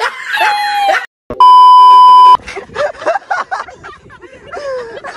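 A man's laughter ends about a second in, then a loud, steady censor bleep tone sounds for about a second; faint voices and clicks follow.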